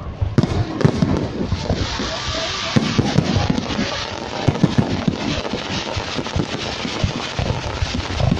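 Aerial firework shells bursting in a rapid, irregular string of bangs, over a steady hiss that builds about two seconds in.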